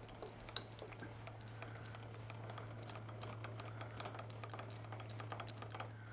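Faint, scattered small metallic clicks and taps as a dial test indicator on its holder is moved from the tool bit across to the 1-2-3 block, over a steady low hum.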